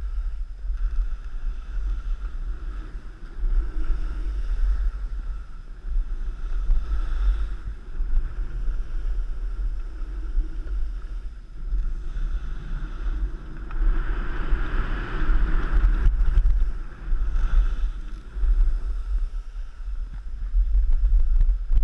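Wind buffeting the microphone while riding down a ski slope, over the scrape and hiss of a snowboard sliding and carving on snow, which swells for a couple of seconds about two thirds of the way through.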